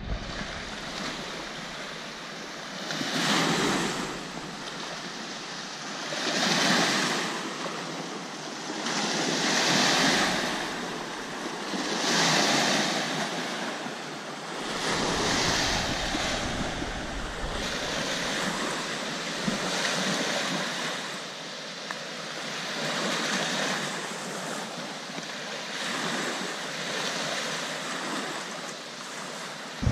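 Small lake waves breaking and washing up on a sandy shore, swelling and fading about every three seconds. Wind buffets the microphone at times, heaviest around the middle.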